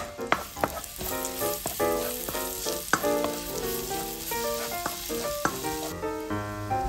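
Crushed garlic sizzling in hot butter and oil in a nonstick pan, stirred with a spatula that clicks against the pan now and then, over background music.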